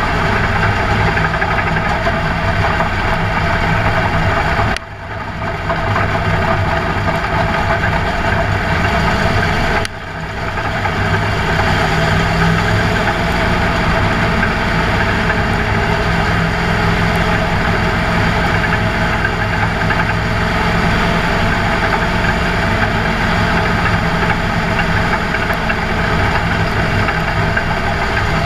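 Race car's V8 engine heard from inside the cockpit, running at steady, unchanging revs with no revving up or down. The sound drops out abruptly and briefly twice, about five and ten seconds in.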